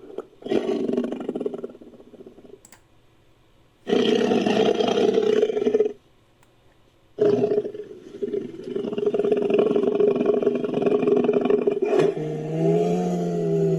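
Designed sabre-toothed cat roars for an Ennedi tiger, layered from Smilodon sound effects: a short roar, then a roar of about two seconds, then after a pause a long drawn-out roar. Near the end of the long roar a wavering, pitched tone rises above it.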